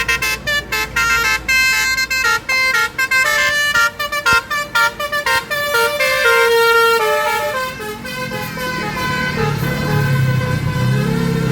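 A bus's 'telolet' multi-tone musical air horn playing a quick run of short, separate notes, then holding a longer chord about six seconds in. From about eight seconds a bus engine is heard running underneath as the horn notes fade.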